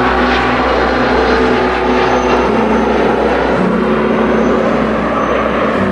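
Passenger jet climbing away after take-off, its engine noise steady, with background music playing over it.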